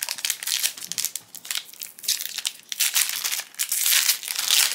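Foil-lined trading-card booster pack wrapper being torn open and crinkled by hand, a run of crackly rustles that gets loudest near the end.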